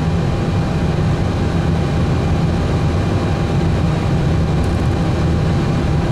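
Steady low engine rumble with a faint steady whine above it, unchanging throughout.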